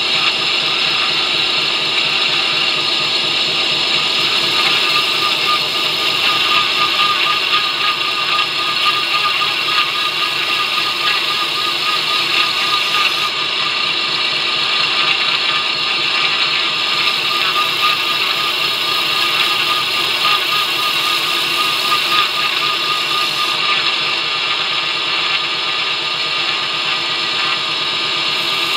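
2x72 belt grinder running steadily with a medium-coarse surface conditioning belt, a steel knife blade held against the belt at times, giving a dense hiss over a steady whine.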